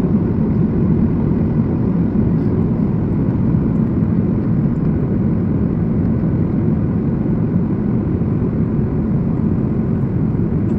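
Steady cabin noise of a jet airliner on approach: a continuous low rumble of turbofan engine and rushing airflow, heard from inside the cabin at a window seat over the engine.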